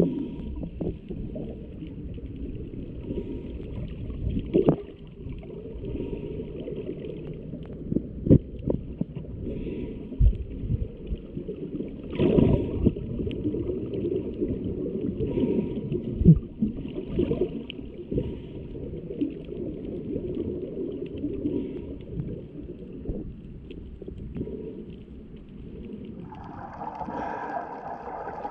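Muffled underwater sound picked up by a camera held below the surface: a steady low rumble of moving water with scattered knocks and clicks. Near the end a brighter rushing sound comes in.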